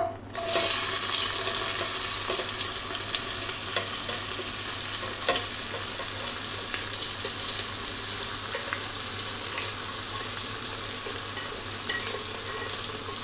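Chopped onions hitting hot oil in a non-stick pressure cooker: a loud sizzle that starts suddenly just after the start and settles into a steady hiss as the onions begin to sauté. Light clicks and scrapes of a spoon pushing the onions off a ceramic plate run through it.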